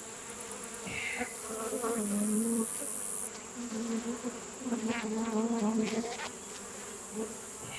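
Honeybees buzzing around the microphone, the drone swelling and fading as individual bees fly past. The colony is agitated and defensive, stirred up by the hive being opened.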